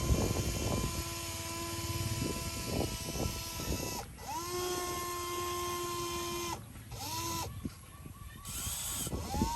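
A motor whine that starts with a quick rise in pitch, holds steady, then cuts off, in a few short runs, over steady crackling and gritty noise.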